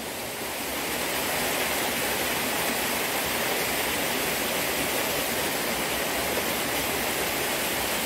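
Small waterfall pouring into a rock pool: a steady rush of falling water.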